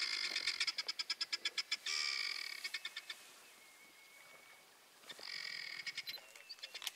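Rapid, pulsing trill calls from a wild animal, about eight to ten pulses a second. They come in two bouts, the second starting about five seconds in after a quieter spell.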